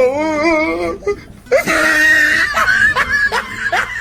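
High-pitched laughter: a wavering, drawn-out laugh, then a shriek, breaking into a string of short rising laugh bursts about three a second.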